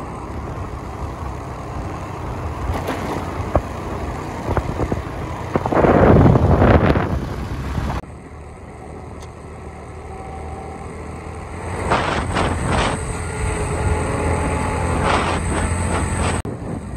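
Motor scooter running on the road, with steady engine, tyre and wind noise. About six seconds in there is a louder swell, and about halfway through the sound drops suddenly to a quieter steady drone.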